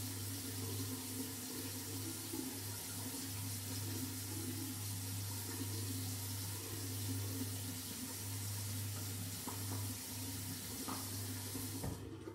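Bathroom tap running steadily into a sink, with a low hum under the rush of water; it is turned off near the end.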